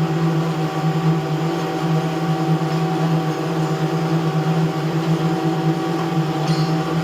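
A machine's engine running at a steady speed with an even droning hum.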